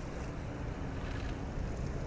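Boeing 777-246 airliner's twin jet engines with a low, steady rumble on final approach, mixed with wind buffeting the microphone.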